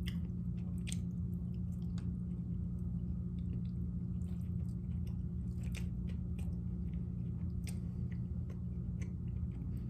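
A person chewing pasta with bacon close to the microphone, with scattered short clicks and smacks of mouth and cutlery, over a steady low hum.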